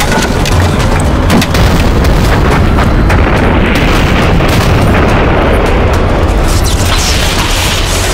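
A battle sound effects mix: continuous explosions with a heavy low rumble, and many sharp shots cracking over it, under a film score.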